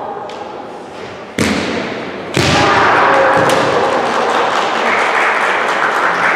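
Two loud thuds about a second apart as kendo fencers strike, with bamboo shinai hits and stamping footwork on a wooden hall floor, followed by sustained shouting (kiai) echoing through the large hall.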